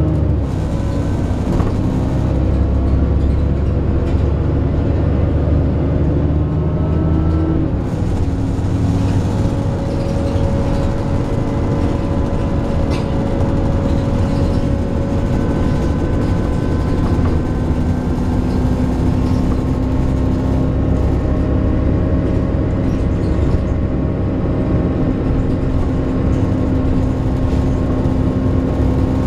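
Alexander Dennis Enviro 400 double-decker bus on a Trident 2 chassis running and pulling along, with engine and road noise throughout. Steady droning tones run through it: the bus's groaning noise. The low rumble is heavier for the first eight seconds or so, then settles.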